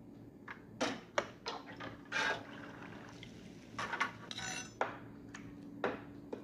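Kitchen utensils knocking and scraping against dishes and pans: a dozen or so sharp, irregular clinks with a couple of longer scrapes.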